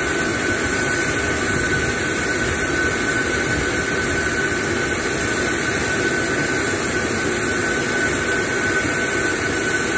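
An Airbus A320's turbine running steadily, a dense noise with a constant high whine over it. It runs while the aircraft's systems are powered for the slat wingtip brake's functional and leak test.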